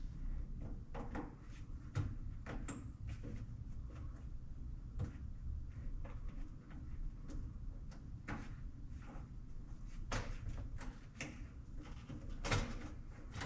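Irregular small clicks, taps and knocks of hands working wire quick-connect plugs and the sheet-metal panels inside a GE stackable dryer, with a sharper knock about three quarters of the way through, over a low steady hum.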